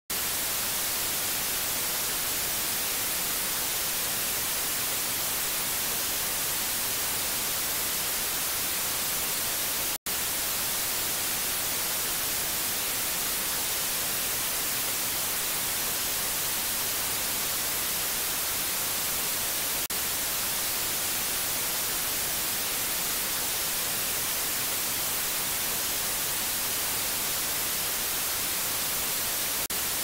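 Steady white noise hiss, with a split-second dropout about ten seconds in.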